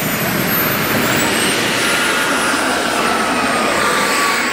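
Radio-controlled model jet's turbine engine running as the jet taxis past: a steady jet rush with a thin high whine that slides slightly lower near the end.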